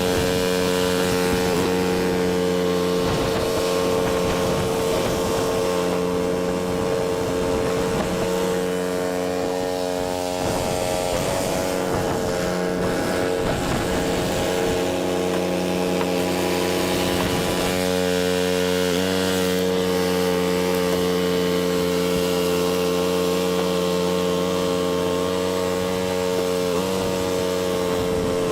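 Cub Cadet 2X 30-inch EFI two-stage snow blower's 357 cc engine running steadily at speed while clearing snow, its pitch shifting slightly a few times.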